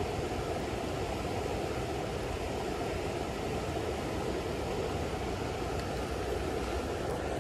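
Steady rush of a shallow creek flowing over a rocky riffle.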